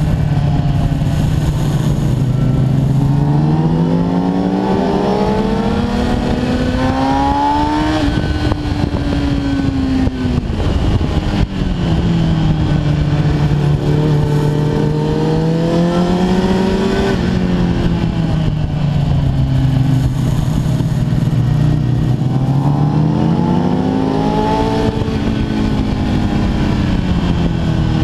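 Kawasaki ZX-10R's inline-four engine heard from on board, its revs rising and falling in three long sweeps: climbing over the first several seconds and dropping, rising again around the middle and dropping, then once more near the end.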